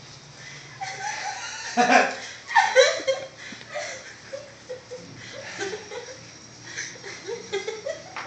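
A person sneezes hard about two seconds in, with two loud bursts close together, then laughs in short broken bursts.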